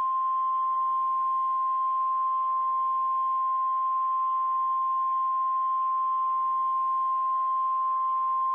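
Emergency Alert System attention tone: a single steady, high beep held without a break over a faint hiss.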